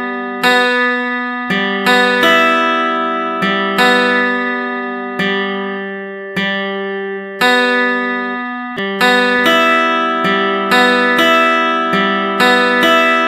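Background music on a guitar-like plucked string instrument: slow strummed chords that ring out and fade between strums.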